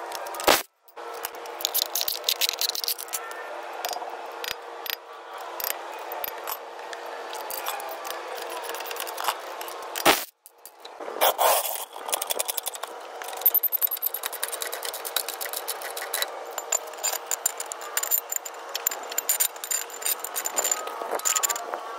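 Cordless impact wrench hammering lug nuts loose, a rapid rattling with a steady motor whine. The sound drops out briefly twice, once near the start and once about ten seconds in.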